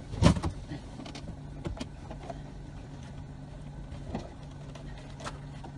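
Small boat's motor running steadily under everything, with one loud thump about a quarter of a second in and a few lighter knocks as a bear cub scrambles over the boat's side and windshield frame.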